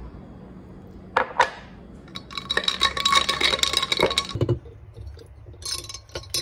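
Ice and a stirrer clinking against a tall drinking glass as an iced chocolate drink is stirred. Two sharp knocks come about a second in, then a quick run of ringing clinks for about two seconds. Near the end a spoon clinks in a glass jar.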